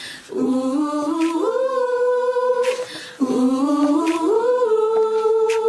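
Background song: a singing voice holding long 'ooh' notes in two phrases, each stepping up in pitch, with little or no instrumental backing heard.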